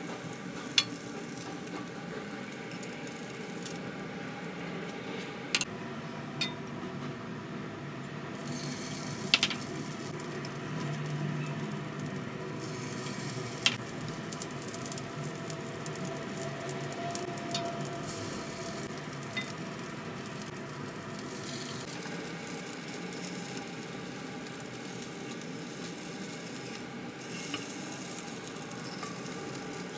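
Hot oil sizzling steadily in a nonstick wok as small pieces of egg-coated food fry, with a few sharp clicks of a spatula and plate against the pan.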